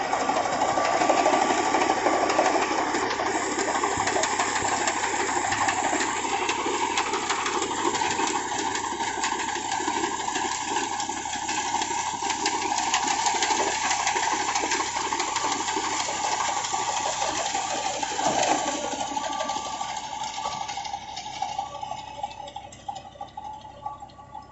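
Reaper cutting wheat behind an Al Ghazi tractor: a steady, dense mechanical noise that fades away over the last few seconds.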